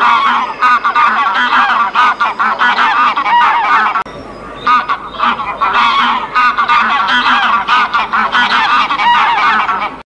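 Geese honking, many overlapping calls at once, breaking off briefly about four seconds in and then resuming.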